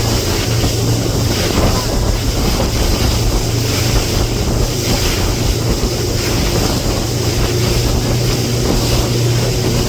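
Speedboat engine running steadily at speed, a constant low hum under the rush of water and heavy wind buffeting the microphone.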